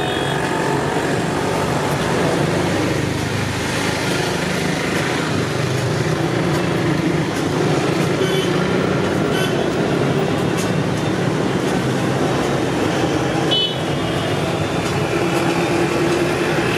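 Steady street traffic noise of passing vehicles, with a brief horn toot about two-thirds of the way through.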